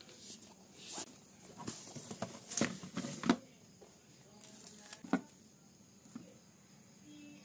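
Wooden pencils and a canvas pencil roll being handled on a wooden desk: fabric rustling with a series of sharp clicks and knocks. The loudest knock comes about three seconds in and another about five seconds in.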